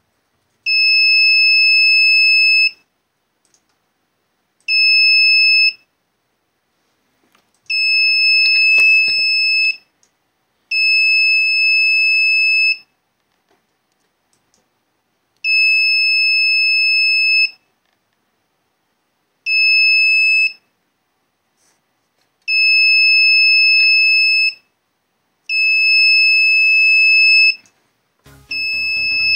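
Piezo buzzer on an Arduino Uno beeping at one steady high pitch, about nine times. The beeps last one to two seconds each and the gaps between them are irregular.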